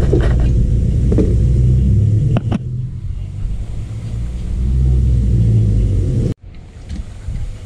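A steady low rumble with a few light metal clinks in the first three seconds, from hand tools on the front suspension. The sound cuts out abruptly about six seconds in.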